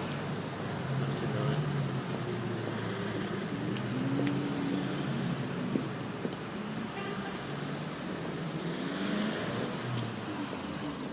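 Street background noise: a steady wash of traffic with indistinct, wavering voices mixed in.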